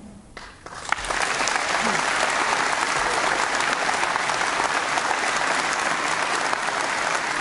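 Conference audience applauding, the clapping starting about a second in and holding steady.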